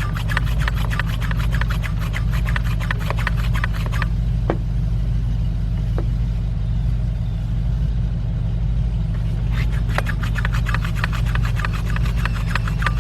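Hand pump of a cooling system pressure tester being worked to pressurize the cooling system. Its strokes make a rapid rasping rub for the first few seconds, stop, and start again near the end, over a steady low hum.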